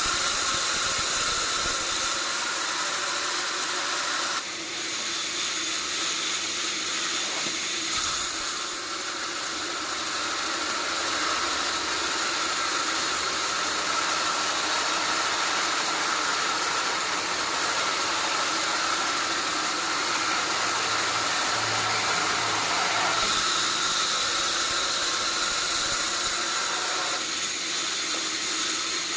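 Sawmill machinery running steadily: a loud hiss-like noise with a steady high whine over it.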